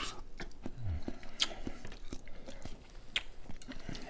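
Biting into and chewing a cob of boiled corn close to the microphone: wet chewing broken by irregular sharp clicks as the kernels are bitten off.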